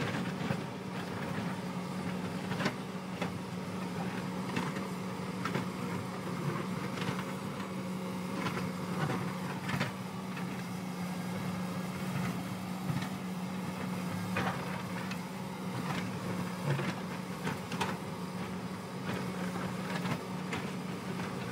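Hyundai 220 crawler excavator's diesel engine running steadily under digging load, with irregular knocks and clatter as the bucket scrapes into the rocky hillside and breaks out stones.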